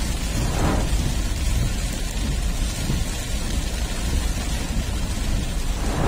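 Heavy rain pouring down with a deep, continuous thunder rumble, with two brief swells of noise, about a second in and right at the end.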